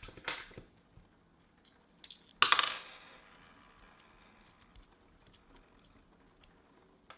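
Light clicks of small metal parts being handled, then a sharp metallic clink about two and a half seconds in that rings and fades over about a second: a small metal piece dropped or set down on a hard surface.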